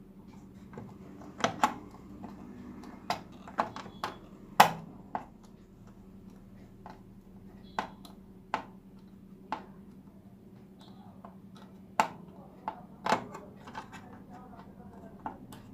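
Irregular sharp clicks and taps, around fifteen, of tools and parts being handled during a TV repair, over a faint steady low hum.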